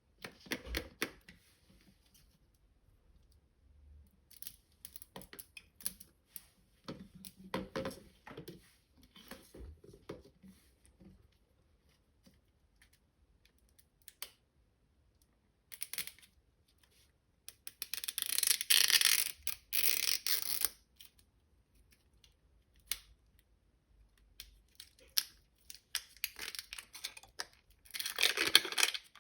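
Toy packaging being handled and opened by hand: scattered taps and light rustles, then louder stretches of crinkling and tearing about two-thirds of the way through and again near the end.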